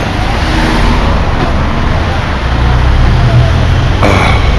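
Road traffic with cars and a bus going by: a low engine rumble that swells a few seconds in, and a brief hiss near the end.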